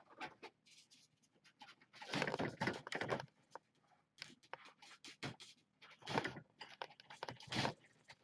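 Kitten scrabbling at the pen fence with its claws: irregular scratching and rustling with scattered small clicks. The longest scratching comes about two seconds in, with shorter bursts about six seconds and seven and a half seconds in.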